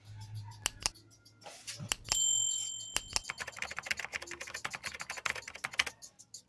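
Starex clipper blade pushed firmly back and forth on a sharpening surface: a quick run of short scraping strokes, several a second. About two seconds in there is a single bright metallic ring that fades over about a second.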